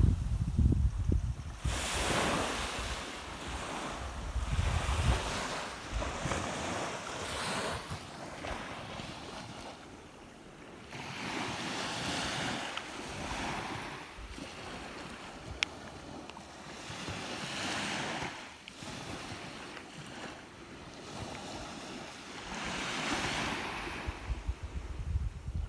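Sea waves breaking and washing on the shore, a rush that swells and fades every few seconds, with wind buffeting the microphone at times.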